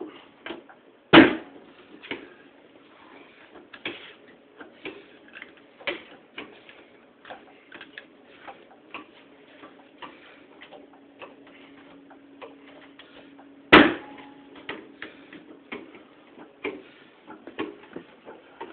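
Irregular light metallic clicks and taps, with two loud sharp knocks, one about a second in and one near fourteen seconds, as a hydraulic bottle jack is worked against a seized piston in a Ruston engine's cylinder.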